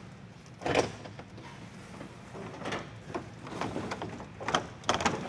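Plastic front bumper cover of a Chrysler 300 being handled and pushed into place against the car's front end. There is a sharp knock about a second in, lighter knocks in the middle, and a quick cluster of knocks near the end.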